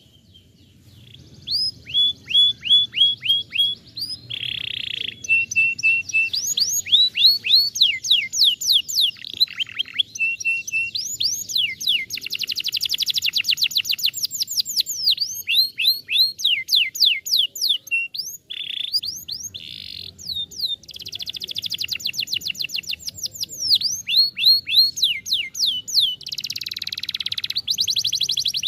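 Domestic canary singing, starting about a second in: fast runs of the same short descending whistled note, repeated many times a second and switching to a new note every few seconds, with quicker buzzing trills in between.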